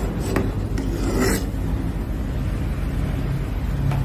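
Pot of soup at a boil on the stove burner, a steady low rumble, with a metal ladle scraping and knocking against the aluminium pot twice in the first second and a half as the foam is skimmed off.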